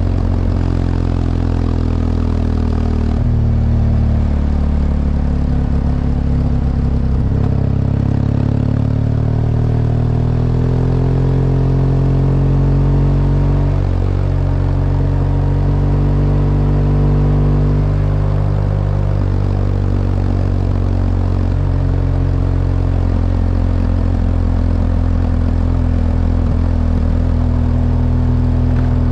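BMW R1200GS LC's two-cylinder boxer engine pulling the motorcycle along on the road, its pitch rising and falling several times as it accelerates and eases off.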